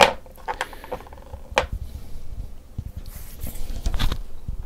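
Folding knives being handled and set down on a wooden board: a sharp knock at the start, then a few lighter knocks and clicks over low rumbling handling noise.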